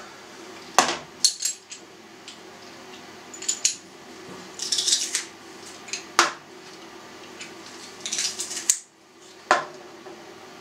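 Hand-held metal garlic press clicking and clinking against a plastic tub as garlic cloves are crushed: a series of separate sharp clicks and short clatters, a second or two apart.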